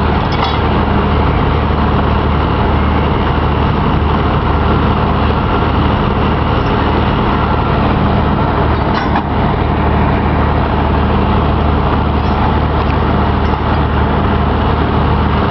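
Heavy truck diesel engines running steadily nearby, the deep idle of the wreckers and semi tractor at a recovery scene, with a brief knock about nine seconds in.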